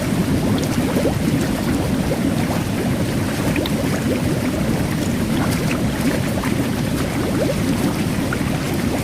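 Jet bath water churning steadily, with fine carbonated bubbles fizzing and popping in tiny scattered ticks throughout.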